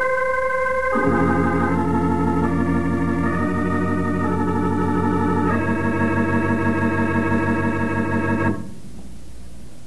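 Organ music bridge marking a scene change in a radio drama: sustained chords, with a deeper bass entering about a second in and the chord changing several times, then cutting off abruptly about a second before the end.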